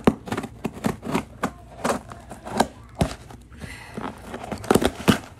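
Kitchen knife cutting open a cardboard box: irregular sharp clicks and scrapes of the blade on the cardboard, then hands working at the box flaps near the end.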